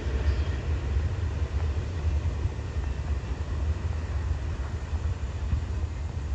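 Steady low rumble of a passing train, with no wheel clicks or horn standing out.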